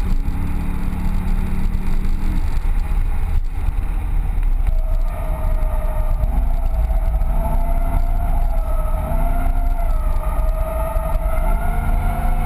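Corvette Z06's V8 engine running hard, heard inside the cabin, its revs rising and falling. From about five seconds in, tyres squeal steadily with a wavering pitch as the car slides through a drift, stopping just at the end.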